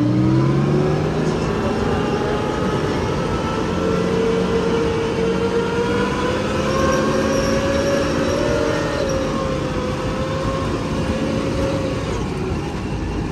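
Abbot self-propelled gun's Rolls-Royce K60 multi-fuel engine running as the tracked vehicle drives along a street. Its pitch rises over the first few seconds as it accelerates, holds fairly steady, then eases off near the end.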